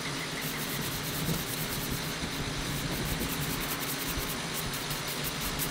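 A sponge scrubbed back and forth over a flat stone grave marker, a run of quick, even rubbing strokes. A vehicle engine idles steadily underneath.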